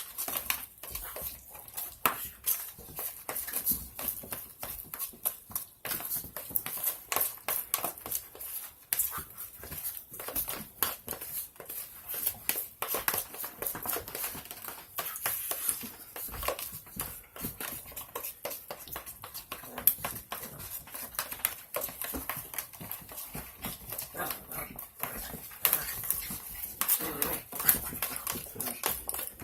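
Spoon mashing and stirring deviled-egg filling (hard-boiled yolks with mayonnaise, mustard and sweet relish) in a bowl: a steady run of irregular clicks and taps of the spoon against the bowl.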